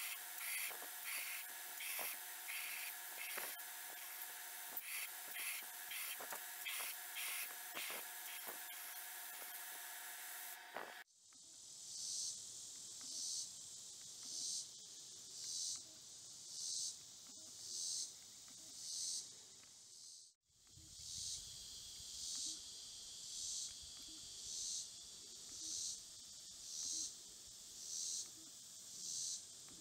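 A belt grinder running steadily with a hiss and a few steady tones. After about ten seconds a cut leads to insects calling outdoors in high-pitched pulses about once a second.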